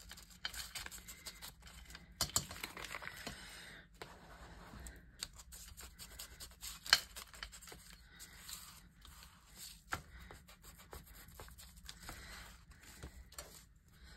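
A sheet of paper being folded, creased and rubbed flat by hand on a cutting mat: irregular crinkling, rustling and crackling, with a sharper crackle about seven seconds in.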